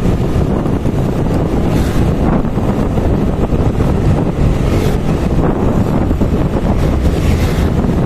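Steady wind buffeting the microphone on a moving motorbike, over the bike's engine and road noise.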